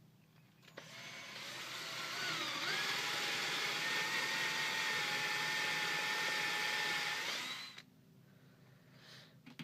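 Power drill boring holes into a pine 2x4. The motor whine rises in pitch as the drill gets up to speed, holds steady for about five seconds, then stops near the end.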